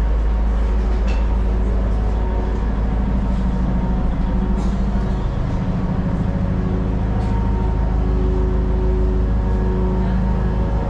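Passenger ferry's engines running, a loud, steady low drone with a constant hum heard through the cabin.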